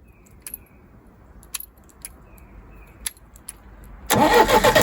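A key switch being turned, several sharp separate clicks, then about four seconds in a sudden loud metallic rattle.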